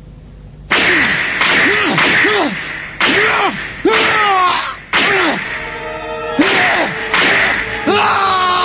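A rapid series of cartoon swishing strike sound effects, each a sudden hit with a sweep that rises and falls in pitch, about a dozen of them starting just under a second in, over background music.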